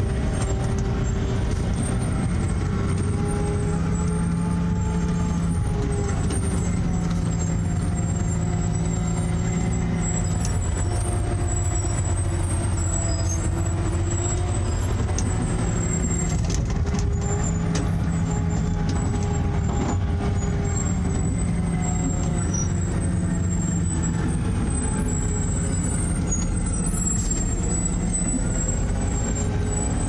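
Heavy concrete truck's diesel engine running while descending a steep dirt road, heard from inside the cab; the engine note drifts slowly up and down over several seconds.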